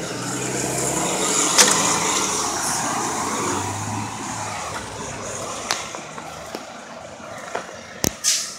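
Cummins ISB 6.7L inline-six turbodiesel of a 2013 Blue Bird Vision school bus driving past, swelling to its loudest about two seconds in and then fading as the bus pulls away, with a car passing in between. A few sharp clicks, and a short hiss near the end.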